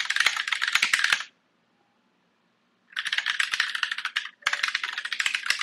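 Fast typing on a computer keyboard: a dense run of key clicks, a pause of about a second and a half, then two more quick runs with a short break between them.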